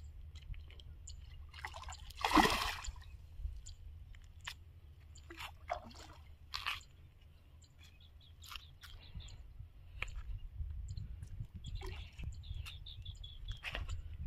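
A splash in water about two seconds in, then scattered small clicks and knocks over a low steady rumble.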